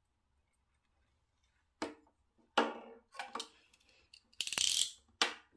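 Handling noise from a small plastic plant pot of potting soil and a metal spoon on a tabletop. After a near-silent start come several sharp knocks and clinks as the spoon is set down and the pot is moved, then a gritty scrape about half a second long near the end.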